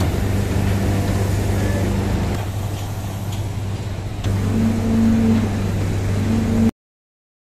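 Heavy machinery in a sugar mill's cane unloading yard running with a steady low drone. The sound changes abruptly about two and a half and four seconds in, then stops dead near the end.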